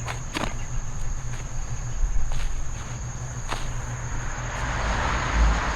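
Crickets trilling steadily, with a few sharp clicks and rustles from hands digging through potato-bed soil and roots. A broad rushing noise builds near the end.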